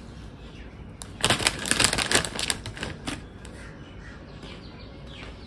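Crisp potato chips being bitten and crunched, a burst of rapid crackling for about two seconds starting a second in, then a few scattered crunches.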